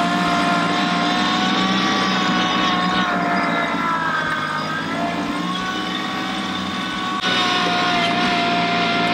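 Kubota LX2610 compact tractor's three-cylinder diesel engine running steadily while it drags a box blade with its scarifiers dropped to the lowest setting, working hard under the load of roots and soil. Its pitch sags slightly about halfway through, then picks back up.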